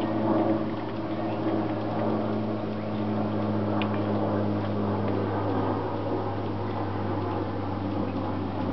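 Steady low mechanical hum, like a fan or motor running, with a constant low pitch throughout.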